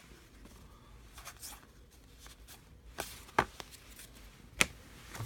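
Baseball trading cards being handled on a table: faint rustling, then three sharp taps, about three, three and a half and four and a half seconds in.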